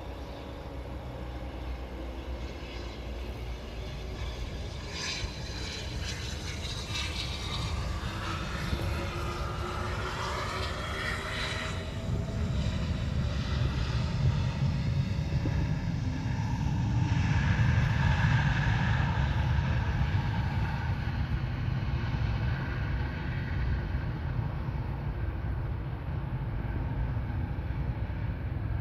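Twin turbofan engines of a Cessna Citation business jet whining as it lands and rolls out on the runway, the whine slowly falling in pitch. A low rumble swells to its loudest about two-thirds of the way through, then eases off.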